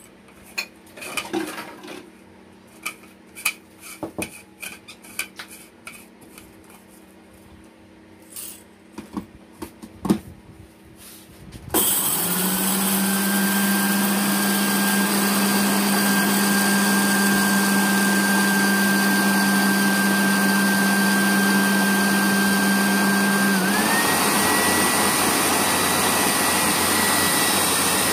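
Countertop electric blender with a small glass grinding jar, grinding roasted coffee beans. Clicks and knocks as the jar is fitted, then about twelve seconds in the motor switches on suddenly and runs loud and steady with a whine; near the end the whine dips briefly and settles at a higher pitch.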